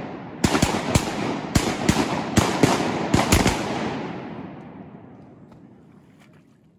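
Several duck hunters' shotguns firing a rapid volley: about a dozen shots in the first three and a half seconds, partly overlapping, then the echo fades away slowly over the next few seconds.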